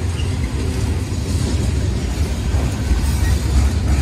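BNSF freight train's cars rolling past close by: a loud, steady low rumble of wheels on rail.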